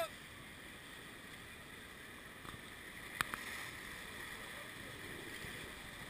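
Steady rush of whitewater river rapids heard from a paddled inflatable raft, with a single sharp knock about three seconds in.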